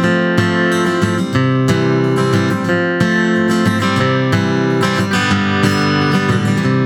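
Acoustic guitar strummed in a steady rhythm: an instrumental break in a country-style song, with no singing.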